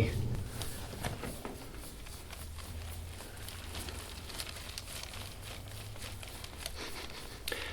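Faint, soft rustling and scuffing of hands and elbow working over a patient's back and clothing during a massage, over a faint low steady hum; no joint cracks.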